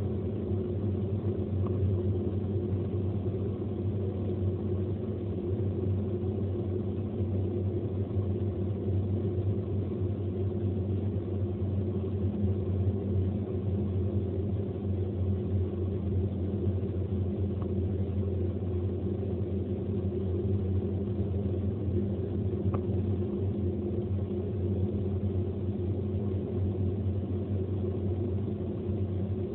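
Steady low drone of a car driving at highway speed, heard from inside the cabin: engine and tyre rumble that holds even throughout.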